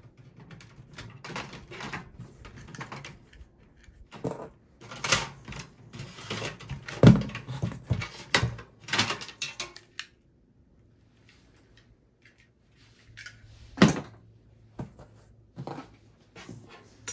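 Clicks, scrapes and knocks of a screwdriver and hands working on a desktop PC's bare steel chassis as the front USB port panel is pried loose and its cable pulled free. The loudest knock comes about seven seconds in; after a short quiet spell there is one more sharp knock and a few light clicks.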